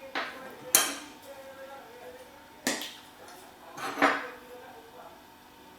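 Kitchenware clinking and knocking while a marinade is measured out with a spoon: four sharp clinks spread over the few seconds, the loudest about a second in.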